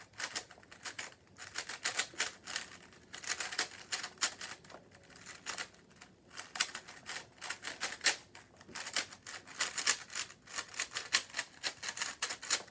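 Plastic speed cubes being scrambled by hand: rapid, irregular runs of clicking as the layers are twisted, with brief pauses between bursts of turns.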